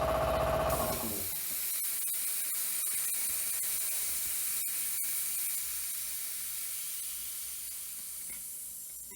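Compressed air hissing out of a rebuilt 80-gallon air compressor tank. A loud, brief pitched squeal at the start gives way to a steady hiss that slowly fades. The tank is venting through its blow-off valve, which opened at 115 PSI, below the intended 130 PSI cut-out.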